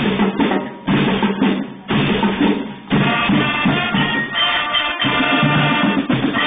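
Marching band playing: the drumline plays alone in short phrases for about three seconds, then the brass comes in with held chords over the drums.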